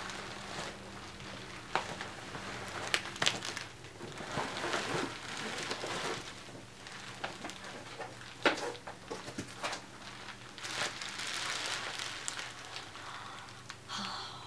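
Bubble wrap rustling and crinkling as it is handled, with a few short, sharp crackles.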